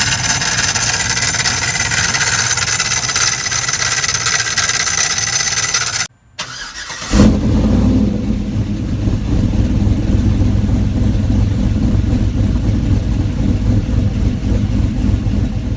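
A harsh, loud mechanical noise for about six seconds, then a cut, and a Trailblazer SS's 6.0 L LS2 V8 starts about seven seconds in and runs with a grinding noise, which the owner hopes is a failing belt-driven accessory pulley.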